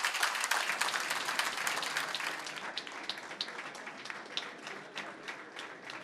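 Audience applauding, dense at first, then thinning out and fading to a few scattered claps over the last few seconds.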